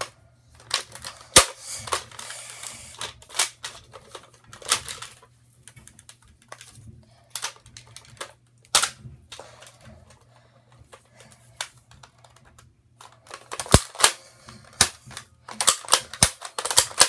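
Plastic clicks and clacks of a Nerf Maverick REV-6 revolver blaster being reloaded by hand: the cylinder swung open and snapped shut and darts pushed into it. The sharp clicks come irregularly, with a quick run of them near the end.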